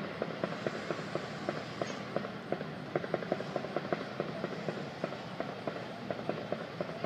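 Fireworks going off in a rapid, irregular string of dull pops and crackles, several a second without a break.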